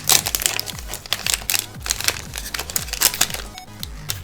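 Foil wrapper of a Pokémon card booster pack crinkling as it is handled and opened, over background electronic music with a regular bass beat.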